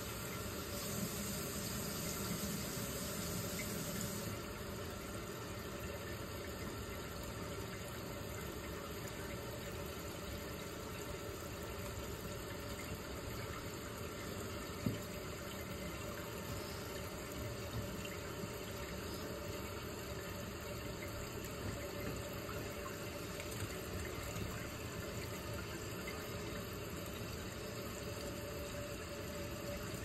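Mansfield toilet tank refilling through its fill valve: a steady hiss of water running into the tank. The hiss is brighter and louder for the first four seconds, and there is a single click about halfway through.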